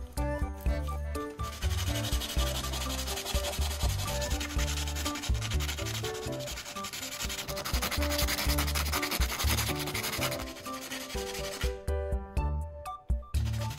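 A carbon rod from an old battery rubbed rapidly back and forth on sandpaper, sharpening it to a point: a steady scraping of quick strokes that starts a second or so in and stops near the end.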